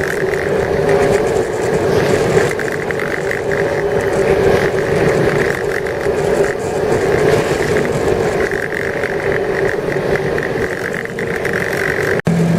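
Ski boat engine running steadily at speed over a steady hiss, with a brief dropout near the end.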